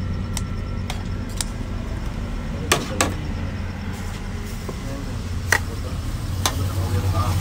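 Metal tongs and kitchen scissors clacking against a stainless steel serving tray: several sharp clicks, the loudest a pair about three seconds in and another near five and a half seconds. A steady low hum runs underneath.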